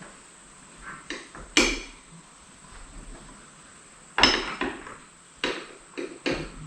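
Bestop Sunrider soft top being closed and latched on a Jeep: a series of sharp clanks and knocks of its frame and latches, about six in all, the loudest about four seconds in.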